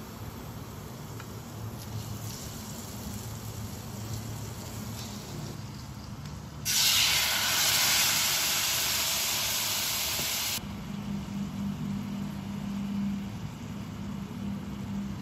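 Seaweed-wrapped tofu frying quietly in a pan of oil. A little under halfway through, sauce poured into the hot pan sizzles loudly with a hiss of steam for about four seconds and stops suddenly, leaving a quieter frying sound.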